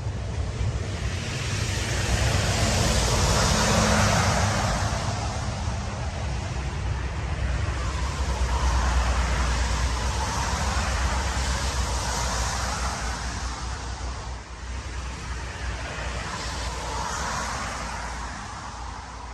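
Wind gusting over the microphone: a rushing noise with a deep rumble that swells and eases several times.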